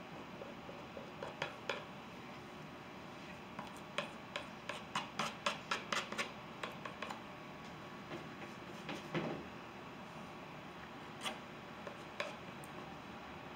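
Palette knife scraping and dabbing thick oil paint onto canvas: a run of short scrapes and taps, quickest about four to seven seconds in at roughly three a second, then a few more spaced out near the end.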